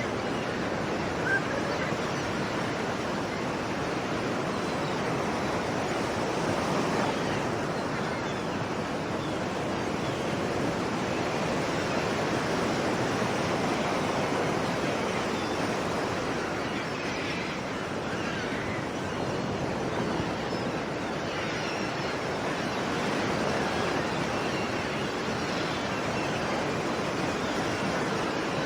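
Sea waves: a steady rushing surf that swells and eases slowly, with one short click about a second and a half in.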